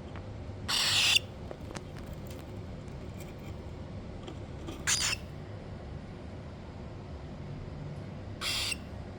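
Cockatiel giving three short, harsh, raspy calls about four seconds apart, the first the loudest.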